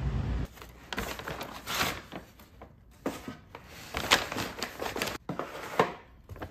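A low traffic rumble that cuts off about half a second in, then a paper takeout bag rustling and crinkling in irregular bursts as food containers are taken out of it.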